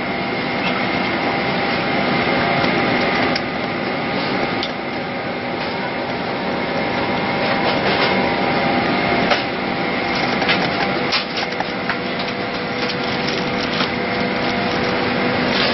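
Steady cabin air-conditioning hum of a Boeing 767 parked at the gate during boarding, a noisy rush with several steady tones in it, broken by scattered light clicks and knocks.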